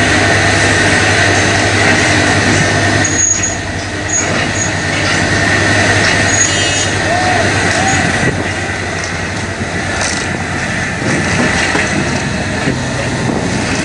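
Diesel material-handling excavators running steadily, with an engine hum and a hydraulic whine, while their grapples crush and tear boat wreckage. Several crashes of breaking debris come through, one about three seconds in and more later on.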